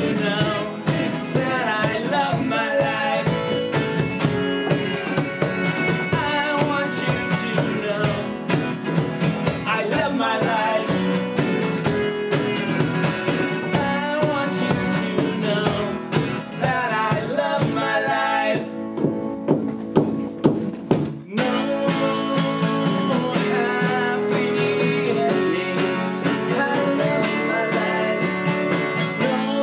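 Live rock band playing a song: electric guitars, keyboard, bass and drums with a lead voice singing. About two-thirds of the way through, the bass and drums drop out for about two seconds, then the full band comes back in.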